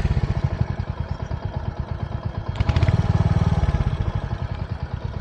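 Royal Enfield motorcycle engine running under way with an even, rapid low pulse, getting louder for about a second around three seconds in.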